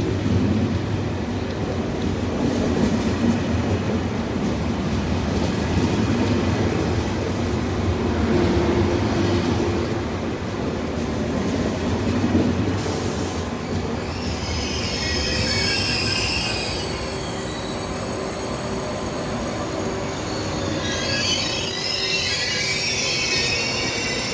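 KTX high-speed train running on the rails with a steady rumble. About two-thirds of the way in, high wavering squealing tones join it, and the sound grows loudest shortly before the end.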